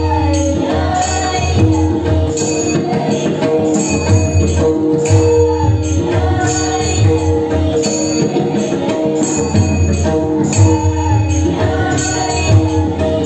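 Devotional bhajan music: steady held reed-organ tones over a rhythmic drum beat, with small hand cymbals jingling on the beat.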